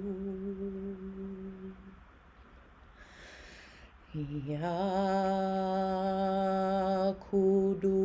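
A single voice chanting the Sufi divine name "Ya Quddus" in long held notes. One note fades out about two seconds in and a soft intake of breath follows. About four seconds in a new note glides upward and is held with a slight waver, breaking briefly near the end.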